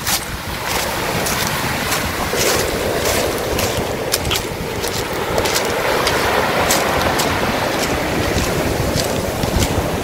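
Storm waves breaking and washing up a pebble beach, with many sharp clicks of stones rattling in the surf. A low rumble of wind on the microphone lies under it.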